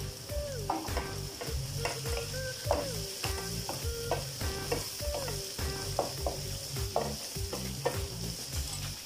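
Wooden spatula stirring and scraping sliced carrots and onions sautéing in an aluminium wok: a steady sizzle of frying, with repeated short scrapes and knocks of the spatula against the metal pan.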